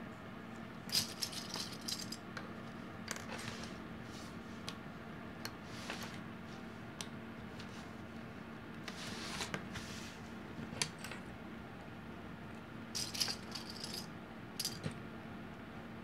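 Small plastic sewing clips clicking and rattling in short scattered clusters as two layers of fabric are clipped together along their edges.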